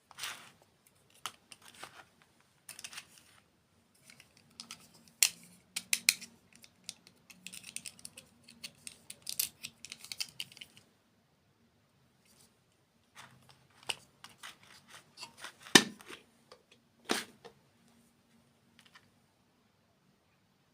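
Irregular sharp clicks and taps from small objects being handled, in two clusters with a pause of about two seconds between them, the loudest click about sixteen seconds in.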